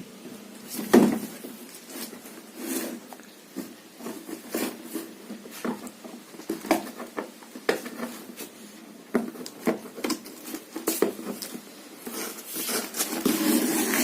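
Ceiling fan being unboxed: irregular clicks, knocks and rustling as the box, wrapping and fan parts are handled, getting busier near the end.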